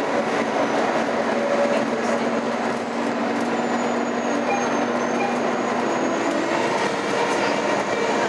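Inside a 2011 Nova Bus LFS city bus under way: steady running noise of the drivetrain and road, with a few held low whining tones and a faint high whistle in the middle.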